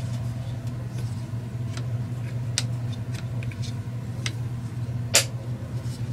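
Light plastic clicks and knocks from handling the housing of a Bushnell Trophy Cam HD trail camera, with one sharper snap about five seconds in, over a steady low hum.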